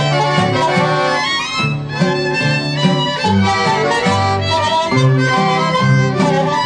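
Instrumental Mexican folk music: a fiddle melody over guitars with a moving bass line.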